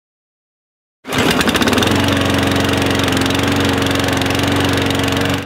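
Lawnmower engine running loudly and steadily. It starts abruptly about a second in and cuts off suddenly near the end.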